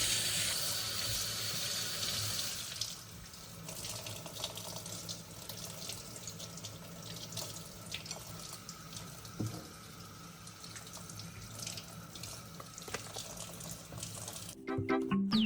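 Water running from a tap into a sink, strongest for the first few seconds and then softer, with scattered light clicks and knocks. Music comes in near the end.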